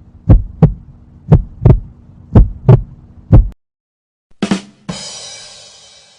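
Heartbeat sound effect: deep lub-dub thumps in pairs, about one pair a second, over a steady low hum. It stops a little past halfway, and near the end a short hit is followed by a bright ringing crash that slowly fades.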